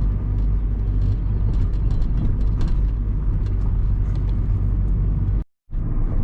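Car driving on a rough, patched road: steady low road and engine rumble with scattered small rattles and knocks. The sound drops out briefly near the end.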